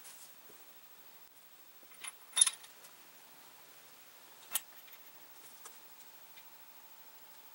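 A few sharp metallic clinks and knocks from handling the Atlas mill's cast-iron headstock and its small steel parts on the bench: a short cluster about two seconds in, the loudest, and a single click a couple of seconds later.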